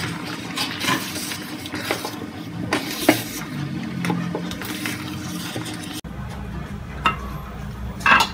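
Wooden spatula stirring thick rava kichadi in a metal electric-cooker pot, with irregular knocks and scrapes against the pot's side and rim. A brief metallic clatter near the end.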